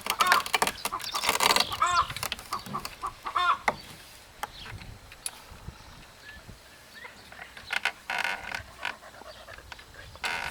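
A chicken calling: a short rising-and-falling call repeated about three times in the first four seconds, among scattered clicks. After that it goes quieter, with two short rustling bursts near the end.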